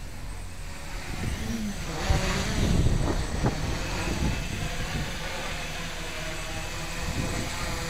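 Homebrew quadcopter's motors and propellers whirring as it hovers low, with a pitch that wavers up and down. The sound grows louder and more rushing from about two seconds in.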